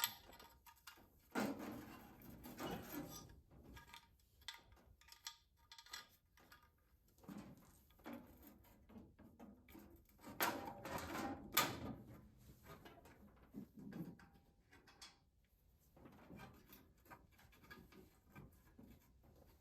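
Faint, scattered clicks, knocks and scrapes of metal parts being handled while a catch can bracket is test-fitted against its freshly drilled mounting holes.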